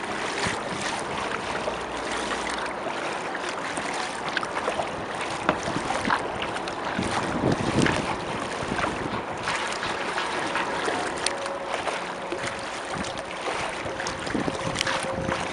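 Water splashing and lapping against a kayak's hull close to the microphone, with irregular small splashes and a stronger splash about halfway through.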